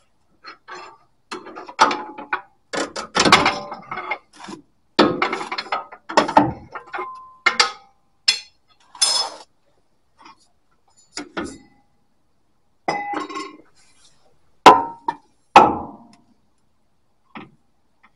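Irregular metal clinks, knocks and scrapes from a rear shock absorber and its mounting hardware being handled and worked into its mounts under a 4WD. Two sharp knocks about three-quarters in are the loudest.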